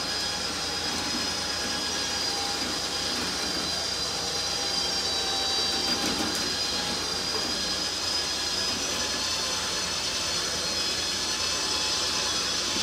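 Flatbed transporter's winch whining steadily as it hauls a 1926 Ford Model T up the steel loading ramp: a constant high whine over a mechanical hiss.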